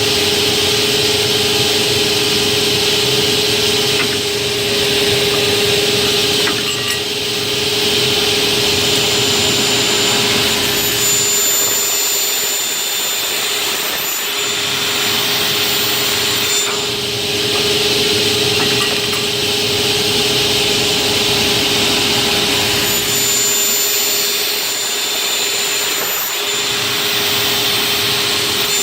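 Automatic aluminium cutting saw running with a steady motor whine. The noise of the saw swells and eases in repeating cycles, about twice, as it works through successive cuts.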